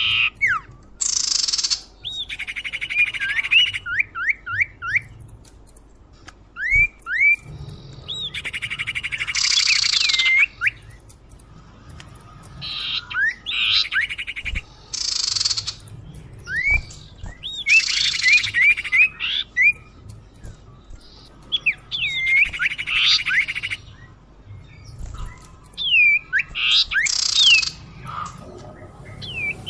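Common iora (cipoh, sirtu) lure calls: bursts of harsh, buzzy chatter alternating with quick runs of short, curved whistled notes, the pattern repeating every few seconds.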